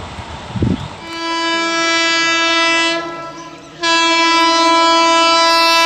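Indian Railways locomotive air horn sounding two long blasts, one steady note each: the first about two seconds long, the second about three seconds long starting just under four seconds in. A few low thumps come before the horn.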